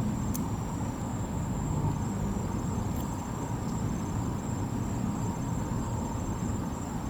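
Steady low background rumble with a faint, thin high-pitched whine running through it, and a light click just after the start.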